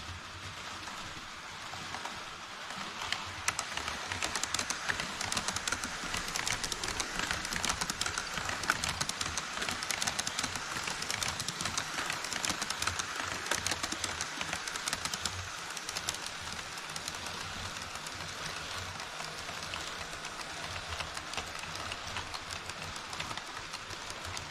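HO scale model trains running over a truss bridge on KATO Unitrack: a dense, rapid clatter of small wheels on the rails and track joints with a low rumble. It grows louder about three seconds in and eases somewhat in the second half.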